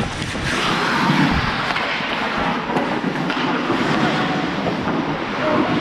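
Wind rushing over a body-worn GoPro as an ice hockey referee skates, mixed with skate blades scraping the ice; the rush swells briefly about a second in.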